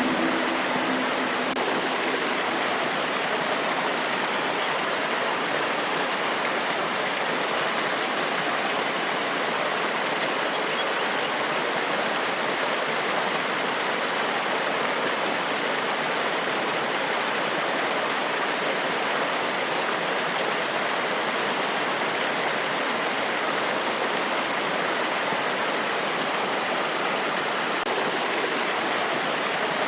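Forest waterfall: water cascading steadily over rocks in an even, unbroken rush.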